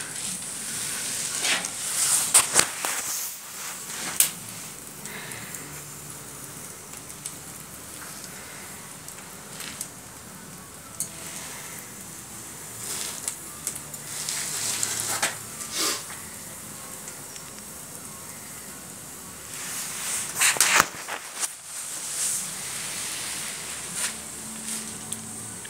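Wood fire burning in a newly built fireplace, a steady hiss broken by clusters of sharp crackles and pops several times.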